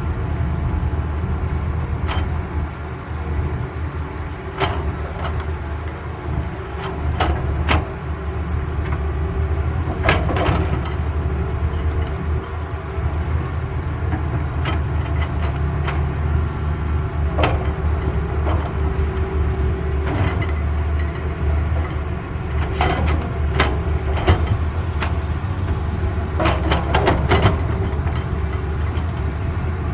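Caterpillar excavator's diesel engine running steadily under work, with scattered metallic knocks and clanks from the digging and loading, several coming in quick clusters in the last third.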